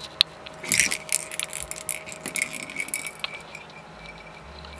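Cat-toy jingle ball jingling in short, irregular bursts with light clicks as a kitten paws and noses it about on a wooden floor.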